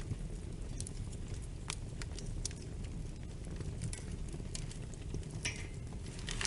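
Wood fire burning in a fireplace: a steady low rumble with scattered sharp crackles and pops, and a brief hiss near the end.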